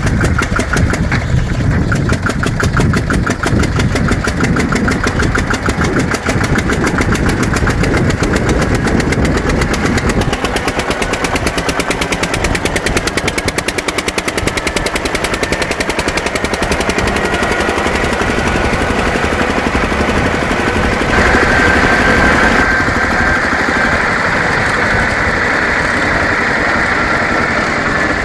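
Allgaier R22 tractor's single-cylinder diesel engine running under way with a fast, even knocking beat. A thin whine rises slowly through the second half and is loudest about three-quarters of the way in.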